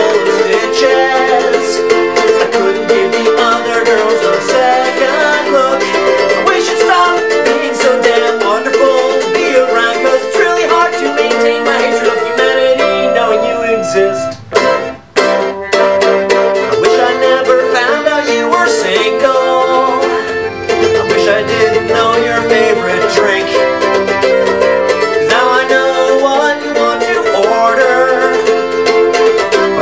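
Instrumental passage of a song played on a plucked string instrument, with a short drop-out a little past halfway.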